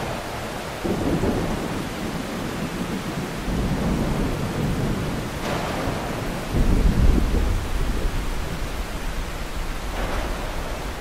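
Thunderstorm: steady heavy rain with repeated rolling thunder rumbles, the strongest about seven seconds in.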